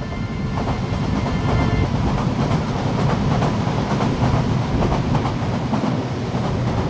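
Nagoya Higashiyama Line subway train passing on an above-ground track, a steady rumble with its wheels clacking over the rail joints.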